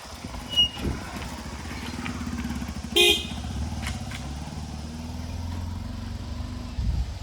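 Diesel engine of a backhoe loader running steadily while it loads mud. A brief vehicle horn toot comes about three seconds in, and there is a low thump near the end.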